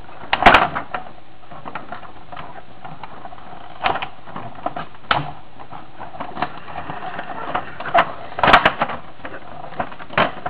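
Scattered clicks and knocks of a Godaikin Bio Dragon toy robot's parts being folded and snapped into place by hand, the loudest about half a second in and a quick cluster near eight and a half seconds, over a steady hiss.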